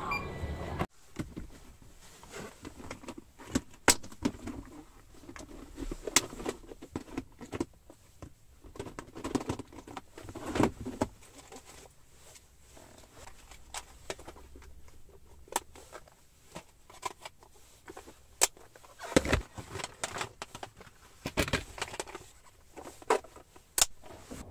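Handling of a clear plastic craft storage box: irregular sharp plastic clicks and soft knocks, with light rustling between them.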